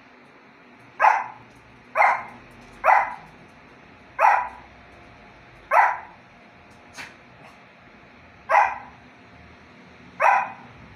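Small long-haired dog barking, seven short, sharp barks at uneven intervals, aimed at a food bowl set on top of a box out of its reach.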